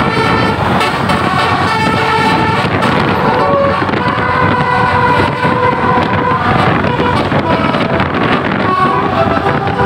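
Basuri musical bus horn playing a melody: a run of held notes that step from one pitch to the next, over a steady rumble of noise.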